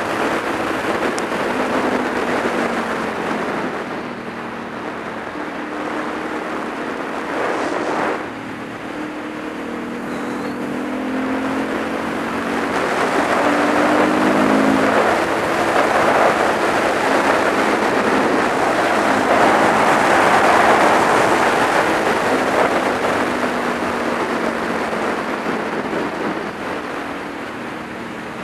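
Supermoto motorcycle engine running at road speed, its pitch rising and falling with the throttle, under a heavy rush of wind noise that grows louder through the middle as the bike speeds up.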